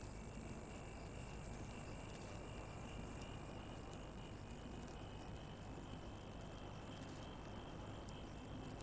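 Faint, steady high-pitched insect chirring, with a low even hiss beneath it.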